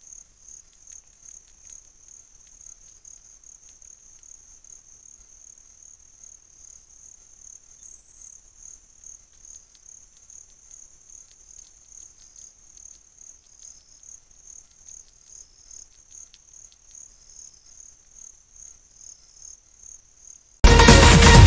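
An insect sings a steady high-pitched pulsing trill, about two to three pulses a second, with faint lower chirps now and then. Near the end, loud electronic music cuts in.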